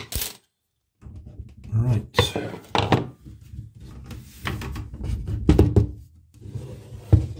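Bath side panel being worked loose and pulled away from the bath, its dowels just sawn through: a run of irregular knocks, thunks and scraping as it shifts against the bath and floor.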